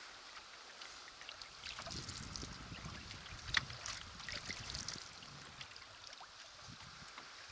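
Paddling a Kevlar Souris River Quetico 17 canoe: paddle strokes with water trickling and lapping against the hull, scattered small splashes and drips, and one sharper knock about three and a half seconds in.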